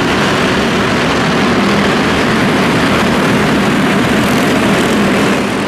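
Engines of a pack of small arena stock cars running together as the field races past, a steady, dense engine noise.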